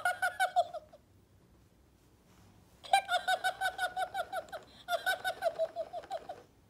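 Talking Elmo plush toy giggling in its high-pitched recorded voice: three runs of quick 'heh-heh-heh' laughter at about ten beats a second. The first run is brief and the other two last about a second and a half each, with pauses between.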